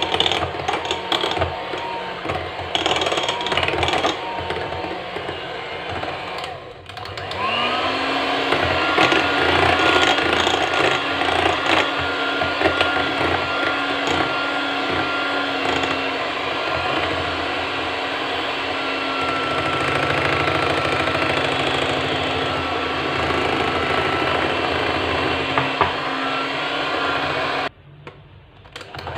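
Sayota electric hand mixer beating melted chocolate into whipped cream: a steady motor whir with a whine. About seven seconds in it stops for a moment, then spins back up with a rising whine that settles to a steady pitch. It cuts out again briefly near the end.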